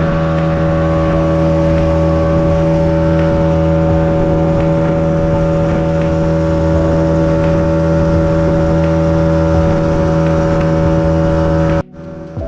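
Boat engine running steadily at constant speed, a loud even hum with a strong low tone; it cuts off suddenly near the end.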